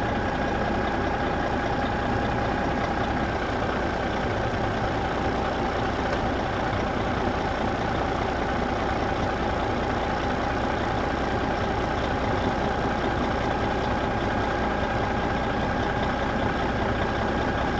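A steady mechanical hum with faint steady tones, unchanging in level and pitch, like an engine or motor running evenly.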